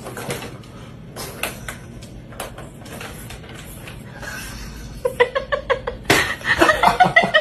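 Hard plastic knocking and clattering of a ring-shaped ball-track cat toy, stuck around a cat's neck, bumping on a wooden floor. From about five seconds in, a person laughing hard in quick repeated bursts, about six a second.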